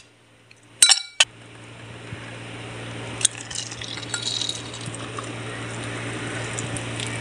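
A few ice cubes clinking into an empty drinking glass about a second in, then thick blended milkshake pouring steadily into the glass over the ice, the pour slowly growing louder as the glass fills.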